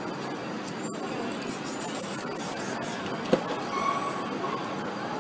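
Steady street traffic noise, with a single sharp knock a little past three seconds in.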